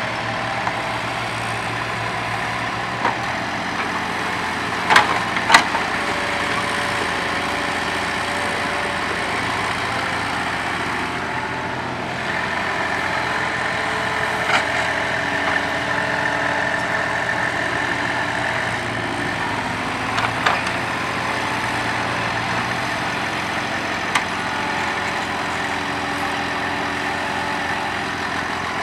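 Old mini crawler excavator's diesel engine running steadily while it digs soil, with a higher hydraulic whine for several seconds in the middle. Sharp metallic knocks from the bucket and arm come several times, the loudest pair about five seconds in.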